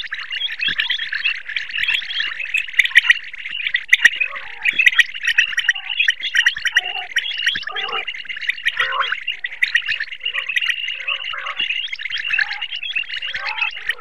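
Common quail calls: a dense, continuous run of rapid chirping notes, with shorter, lower calls breaking in about once a second.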